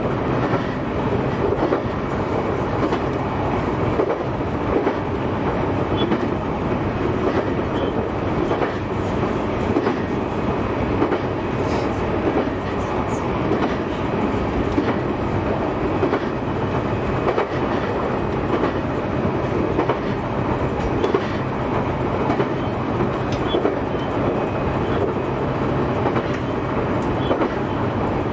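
JR E131 series electric multiple unit running along the line at steady speed: an even rumble of wheels on rail, with a few faint clicks scattered through it.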